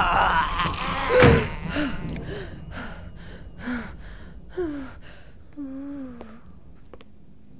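A woman panting and gasping in fright: a loud cry about a second in, then short sharp breaths about two a second with small whimpering cries, dying away over a few seconds.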